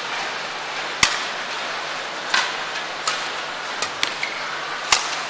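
Badminton rackets striking the shuttlecock in a rally: sharp cracks roughly a second apart, the loudest about a second in, over the steady hiss of the arena crowd.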